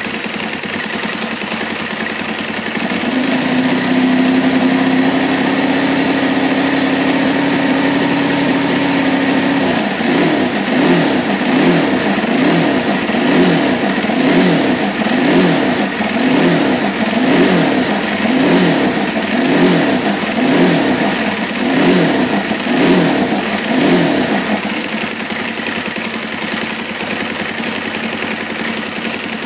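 An engine idling, then held at a steady higher speed from about three seconds in. From about ten seconds in it is revved up and down about once a second, then drops back to idle near the end.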